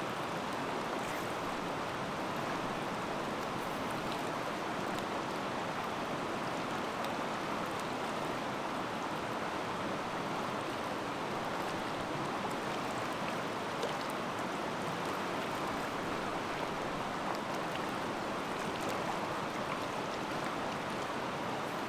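Fast river current rushing steadily over rocks and shallow riffles.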